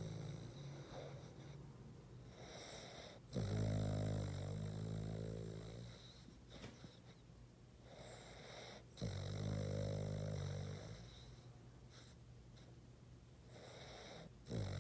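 Boston terrier snoring, a sound typical of the breed's short, flat muzzle. A loud snore starts sharply about every five and a half seconds and lasts about two seconds, with quieter breathing between.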